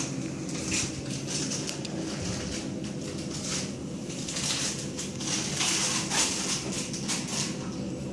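Steady low room hum, with soft rustling hiss coming and going every second or so.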